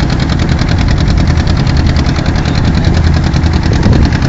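Boat engine running steadily with a fast, even throb.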